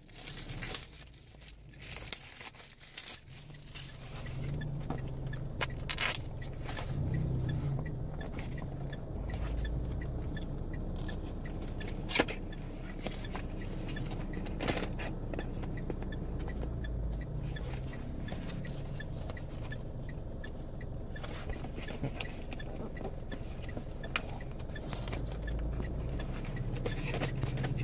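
Scattered clicks and taps of a dashcam's retail box and packaging being opened and handled. A steady low hum sets in about four seconds in and runs underneath.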